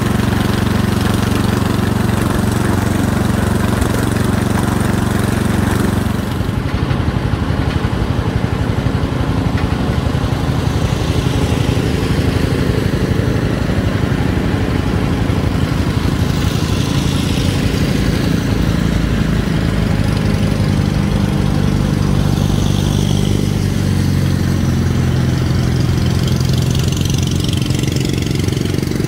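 Wheel Horse garden tractor engine running steadily while riding along. About six seconds in this gives way to the engines of other Wheel Horse garden tractors approaching along the road, their tones shifting as they come closer.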